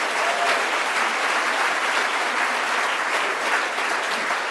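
A large congregation applauding, with steady, dense clapping.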